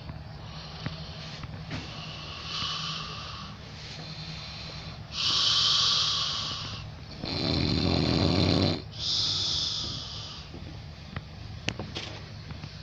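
Snoring: a run of hissing breaths every second or two, growing louder about five seconds in, with one deep, rattling snore around eight seconds.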